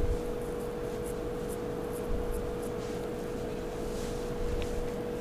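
Soft rubbing and light taps of fingers packing mashed-potato stuffing into hollowed green bell peppers, under a steady hum.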